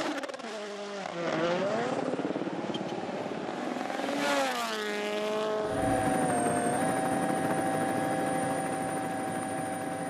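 Rally cars at racing speed on gravel stages. A car's engine passes close with its pitch dropping; about four seconds in an engine revs up and falls back, and from about halfway a steadier engine drone holds to the end.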